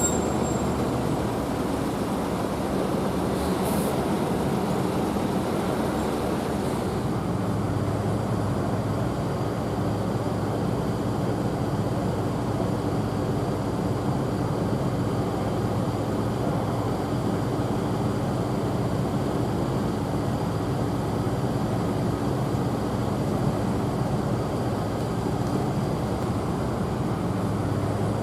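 A vehicle's engine hum and road noise, steady throughout, with no siren.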